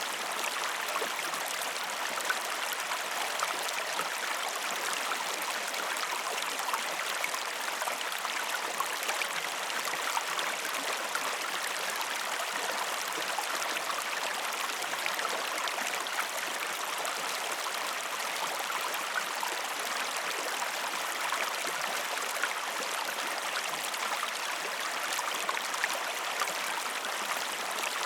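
River water flowing steadily: an even, unbroken rush dotted with many small splashes.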